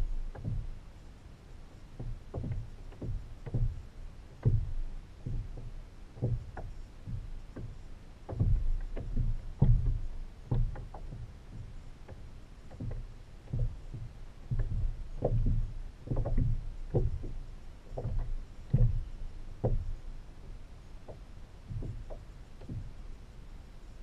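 Kayak on the water: irregular low knocks and thumps against the hull, one or two a second, as it is paddled.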